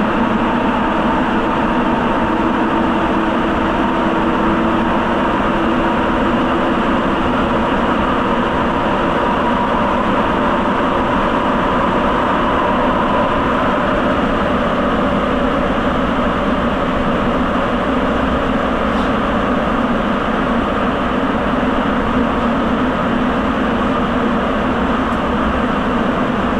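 Sapporo Municipal Subway Tozai Line train running at steady speed through the tunnel, heard from inside the car: the continuous, even running noise of its rubber tyres on the concrete guideway, with a faint steady hum underneath.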